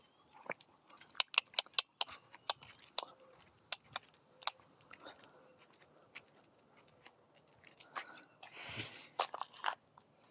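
Cat chewing and crunching on something small, with irregular sharp crunches and clicks.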